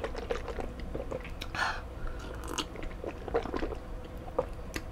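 Close-miked mouth sounds after a sip of water: small wet clicks of the lips and tongue, and a swallow or two.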